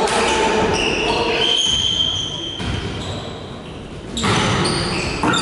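Sports-hall noise during a volleyball match: voices echoing in the hall, with short high squeaks such as shoes make on a gym floor.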